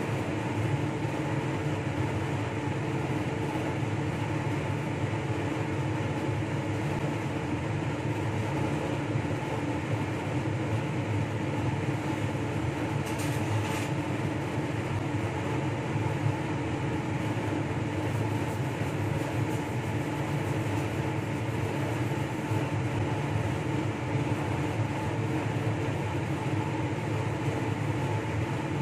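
Steady droning hum of a fan or blower running, with several steady low tones in it and no change in level. A brief faint hiss comes about 13 seconds in.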